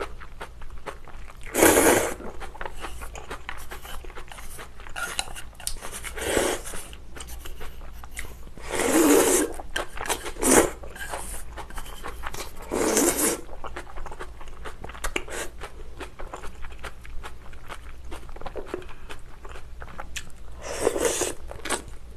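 Close-miked eating of noodle soup: several loud slurps of noodles and broth, with wet chewing and small mouth clicks between them.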